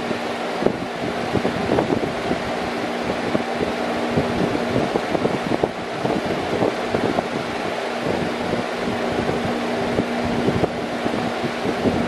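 Electric fan with a chrome wire grille running steadily: an even rush of air over a low steady hum, with an uneven low fluttering through it.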